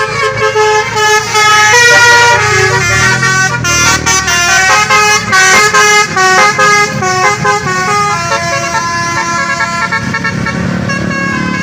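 A bus's multi-trumpet 'telolet' basuri air horn playing a quick tune of short, stepped notes, with the bus engine running underneath.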